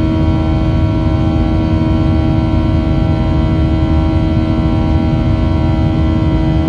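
Boeing 737-700's CFM56-7 turbofan engines at climb power, heard inside the cabin: a steady drone with a low rumble, a set of steady whining tones and airflow hiss.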